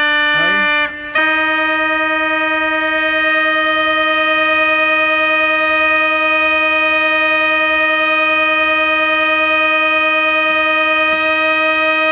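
Trumpet reed pipe of a Ruffatti pipe organ sounding one held note during tuning. About a second in the tone slides up and breaks off briefly, then the note comes back and holds steady with a slight regular waver.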